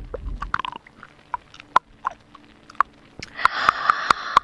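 Close-miked wet mouth sounds: scattered crisp clicks and smacks of tongue and lips, with a breath about three seconds in.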